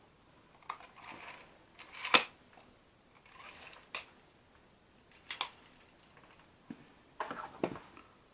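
Irregular small clicks and clacks of tape measure parts being handled during reassembly, the sharpest about two seconds in and a quick cluster near the end.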